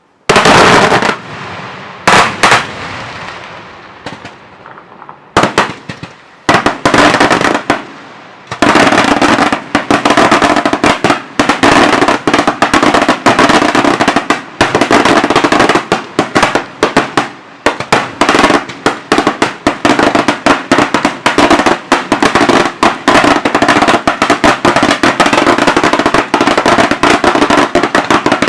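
Daytime fireworks bangs: a few single loud blasts with long fading echoes, then from about eight seconds in a dense, continuous barrage of rapid firecracker bangs.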